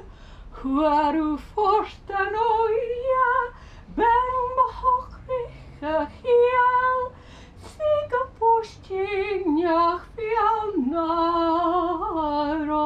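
A woman singing solo and unaccompanied: a slow melody in phrases with short breaths between, the held notes wavering with vibrato.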